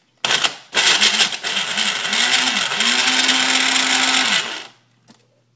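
Countertop blender switched on for a short pulse, then run for about four seconds on frozen strawberries. The motor pitch dips and recovers several times as it loads on the frozen fruit, then holds steady before stopping.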